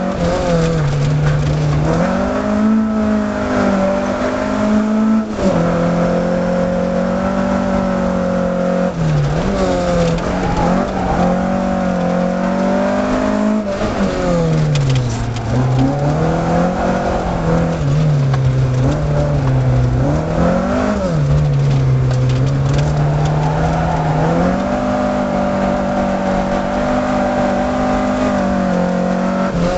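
Peugeot 305 GTX's four-cylinder petrol engine driven hard, heard from inside the cabin. The revs climb and drop again and again, with several sudden falls in pitch.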